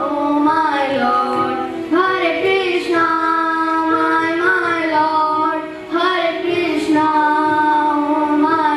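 Girls singing an English song into microphones, with long held notes and a short break between phrases about six seconds in.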